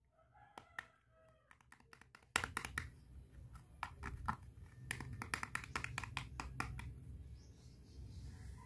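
A small plastic toy hairbrush handled in the fingers: a quick, irregular run of light plastic clicks and taps, sparse at first, thickest from about two and a half seconds in, and dying away before the end, over a low steady hum.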